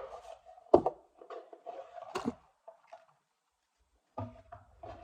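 Cardboard card box and trading cards being handled: two sharp knocks, about a second in and just after two seconds, among light rustling and tapping.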